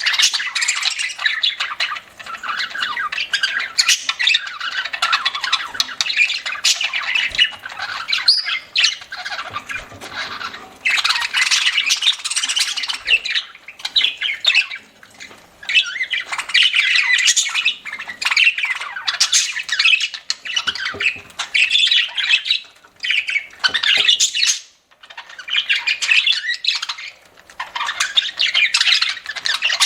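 Budgerigars chattering and squawking almost without a break, with short lulls about 15 and 25 seconds in.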